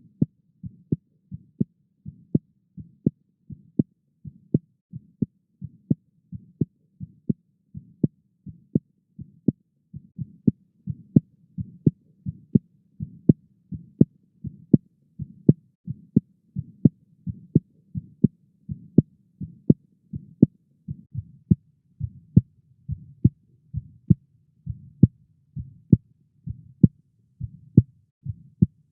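Korotkoff sounds heard through a stethoscope over the brachial artery as the blood-pressure cuff is let down: a regular run of sharp, low tapping beats with a soft rush between them. This is turbulent blood flow through an artery partly squeezed by the cuff, with systolic pressure above cuff pressure.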